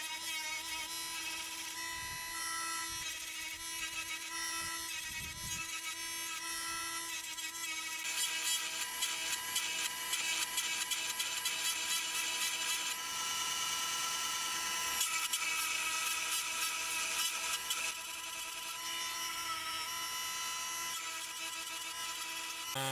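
Small 12-volt battery-powered chain grinder running with a steady electric whine, grinding the cutters of a chainsaw chain that was dulled by hitting nails. A harsher, gritty grinding comes and goes through the middle as the stone works the teeth.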